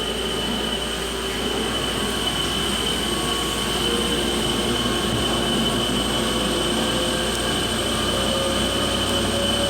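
Tormach Slant-Pro CNC lathe turning 1045 cold-rolled steel: a steady machining noise with a constant high whine, and a lower tone that rises slightly in pitch near the end. The carbide insert's chipbreaker is not breaking the chips.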